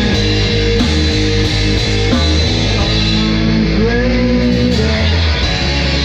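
Rock music with guitar and a steady bass line, one note bending up in pitch about four seconds in.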